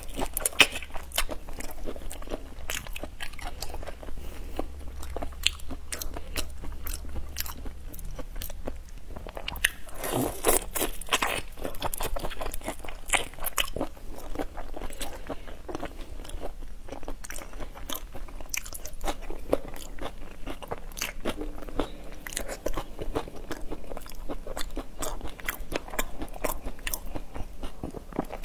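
Biting and chewing of whole shell-on prawns: a dense, continuous run of crisp crunches as the shells are bitten through, mixed with wet chewing.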